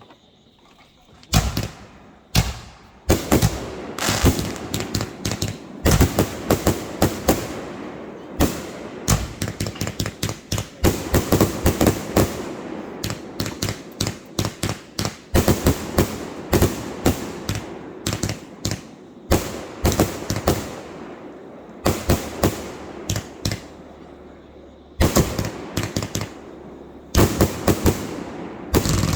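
Consumer fireworks going off: a rapid string of sharp bangs and crackles in quick clusters, starting about a second in and keeping up with only short lulls.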